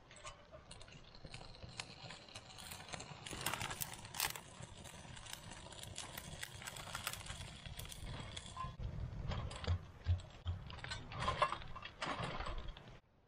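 Kindling crackling and popping irregularly as a fire catches in a small metal twig stove.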